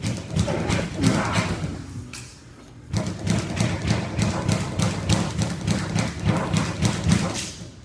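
Music with a heavy thudding beat, about three beats a second over a steady low bass, cutting off suddenly near the end.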